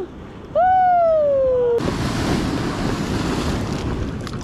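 A pitched tone, added in editing, swoops up and then slides slowly down for about a second. It cuts off, and sea surf washing over the rock shelf takes over, with wind buffeting the microphone.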